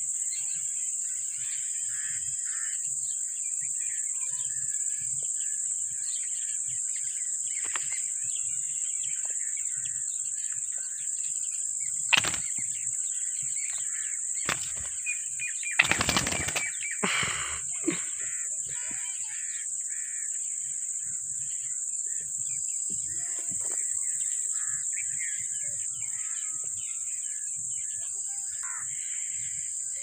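Ringneck parakeet wings flapping in a loud burst about halfway through as one flies onto the ledge beside the others, with a sharp click a few seconds earlier. Soft bird chirps and a steady high hiss run underneath.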